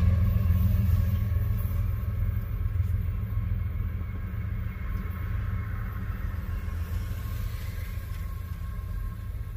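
Low, steady vehicle rumble heard from inside a car, slowly fading.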